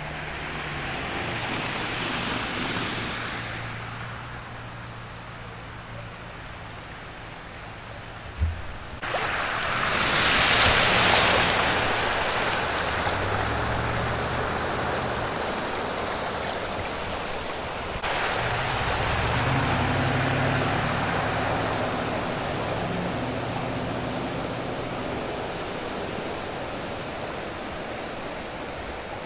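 Cars and pickup trucks driving through standing floodwater, their tyres throwing up spray with a rushing hiss that swells as each vehicle passes, and engines humming underneath. There is a brief thump about eight seconds in.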